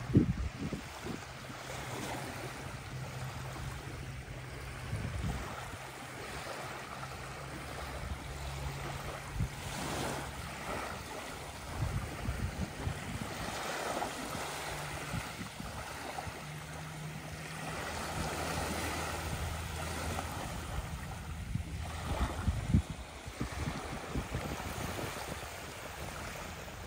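Small waves lapping on a sandy shore, with wind buffeting the microphone and a faint low steady hum underneath.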